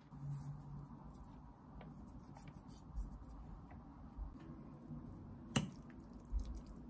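Faint tabletop handling sounds of metal cutlery and a ceramic plate: scattered light ticks, a couple of soft thumps, and one sharp click about five and a half seconds in.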